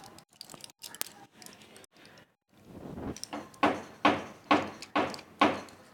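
A run of five or six evenly spaced knocks, about two a second, each fading quickly, after a couple of faint clicks.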